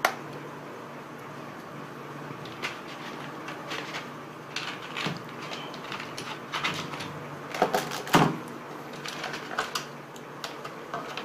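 Scattered plastic clicks and knocks from handling DDR4 RAM modules and the motherboard's memory-slot latches, the loudest a pair about eight seconds in.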